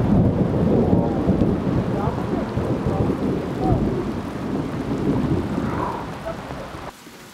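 Thunder rumbling after a lightning flash over steady rain. The rumble is loudest at the start and dies away over about six seconds, then the sound cuts off abruptly near the end.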